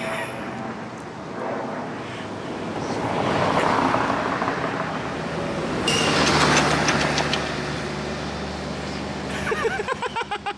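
Road traffic: vehicles pass one after another, the noise swelling and fading. About halfway through a heavier vehicle's engine comes in suddenly with a steady hum. Near the end there is a quick string of short pulsed sounds.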